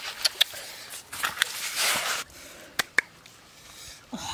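Hands moving grilled fish about on a banana leaf: the leaf rustles and crinkles, with a handful of small sharp clicks and taps.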